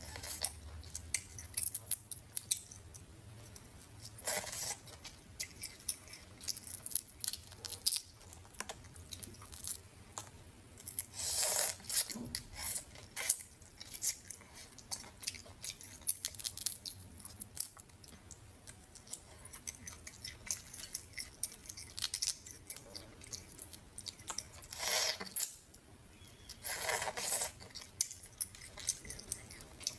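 Close-miked eating sounds of a person eating spicy crayfish: chewing and crunching of shell and meat with many small clicks and smacks, and several louder crunchy stretches of about a second each.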